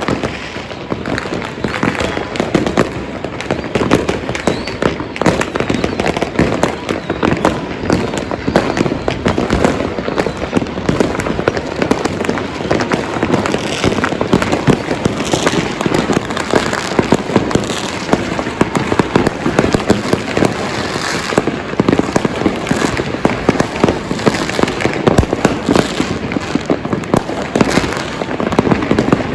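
A dense, continuous barrage of fireworks and firecrackers, with countless overlapping sharp bangs and pops and no let-up.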